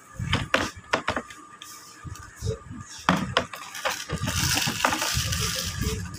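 Hard plastic homeware, a mug and soap dishes, handled inside a plastic tub: several sharp knocks and clatters as the pieces are picked up and set against each other, with a stretch of rustling near the end.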